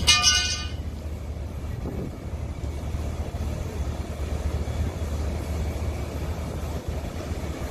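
Fire engine running its pump, a steady low rumble under an even rushing noise. There is a brief, loud, high-pitched sound at the very start.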